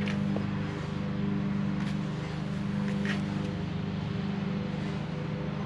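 A steady low mechanical hum from some running machine, with a few faint clicks and taps of parts being handled.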